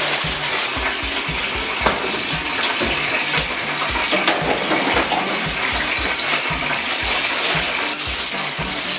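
Kitchen tap running steadily into a sink, with water splashing over hands.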